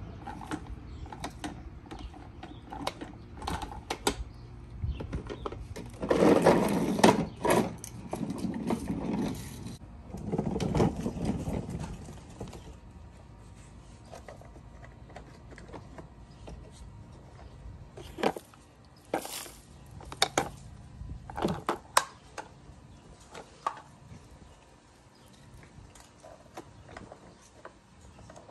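Plastic toy garbage truck mechanisms worked by hand: clicks and ratcheting of the lifting arm and tipping bins. There are two louder stretches of rattling a few seconds in, and a run of sharp clicks later on.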